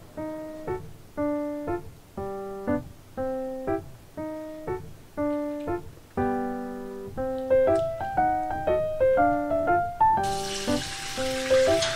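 Playful background music: a piano-like melody in short, bouncing phrases. About ten seconds in, a steady hiss joins it.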